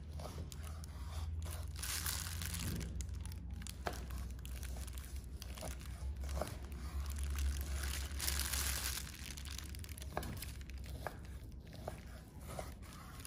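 Large kitchen knife slicing through blanched pork fat and knocking on a wooden cutting board at irregular intervals, with the crinkle of the plastic food glove on the hand holding the fat.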